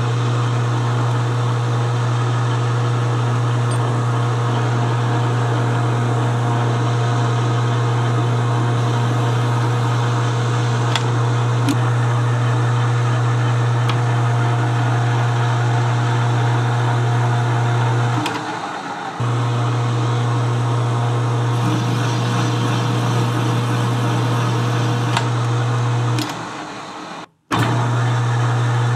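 Metal lathe running with a Triumph Tiger Cub cylinder head spinning in its four-jaw chuck while a boring bar works inside the exhaust port. It gives a steady low hum that drops out briefly twice, about 18 seconds in and near the end.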